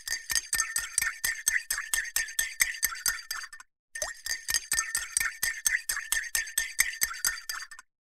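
Metal teaspoon stirring in a ceramic coffee cup, rapidly clinking against its sides about six times a second, each clink ringing briefly. The clinking stops for a moment about four seconds in.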